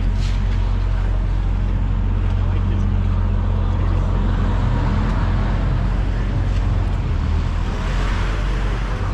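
An engine running with a steady low hum, while a rushing noise builds to a peak near the end and then eases off, like a vehicle going by.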